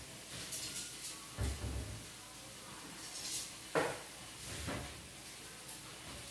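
Scattered knocks and clicks of kitchen handling at a gas stove, with one sharp click just before four seconds in, as the wooden cabinet beneath the stove is opened to get at the empty gas cylinder.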